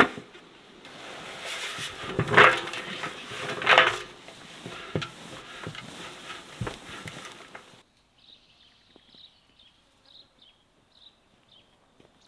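A burlap sack rustling as a load of garlic scapes is tipped out and slides into a large aluminium basin, with a sharp knock at the start and two louder swishes of stalks pouring in. The rustling stops suddenly just before the end, leaving a small bird chirping faintly.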